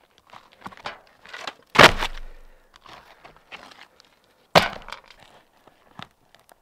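Asphalt roof shingles being handled and pried up by gloved hands: scattered scraping and rustling, with two loud sudden sounds, the first about two seconds in and the second about four and a half seconds in.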